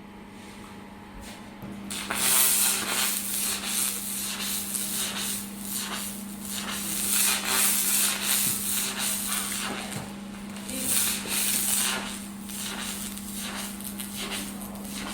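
Handheld pulsed fiber laser cleaner ablating rust from metal: a harsh crackling hiss that starts about two seconds in and rises and falls in loudness. A steady low hum runs under it.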